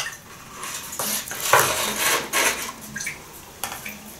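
A metal spoon scraping and clinking against a glass jar and a glass while a dry ingredient is scooped out loosely, with several sharp clicks among the scraping.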